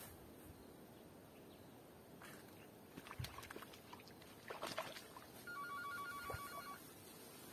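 A mobile phone ringing about five and a half seconds in, a rapid two-tone trill lasting just over a second. Before it, faint rustling and clicks as a cast net is hauled in by its rope through the grass.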